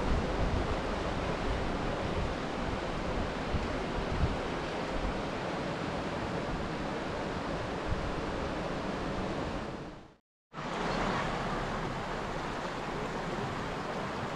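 Steady rushing of water over the small rapids of the Tanew river, with wind buffeting the microphone at times. The sound drops out abruptly for a moment about ten seconds in, then resumes.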